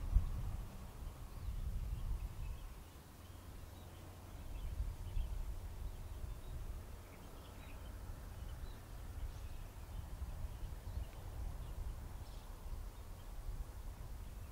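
Outdoor ambience: a passing road vehicle dies away in the first second, leaving a steady low rumble and faint, scattered bird chirps.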